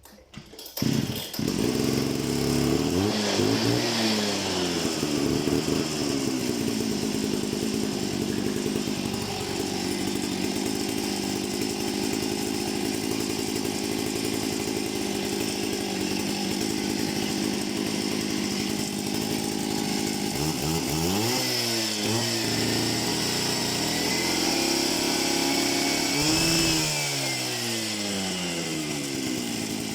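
Partner K650 Active III two-stroke concrete cut-off saw starting about a second in, then running steadily. Its engine speed falls and rises a few times: shortly after it starts, about two-thirds of the way through, and near the end.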